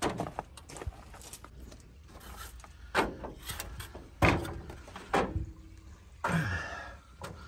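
A handful of separate clunks and knocks, spaced a second or so apart, like objects being handled and set down or a door or lid being shut.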